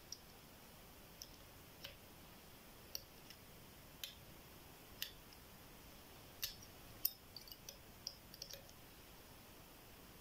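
Faint, sharp metallic clicks of a flag-style dimple pick working the pins of a 10-pin GLK euro dimple lock under clockwise tension. The clicks come singly, about a second apart, then in a quicker cluster around eight seconds in.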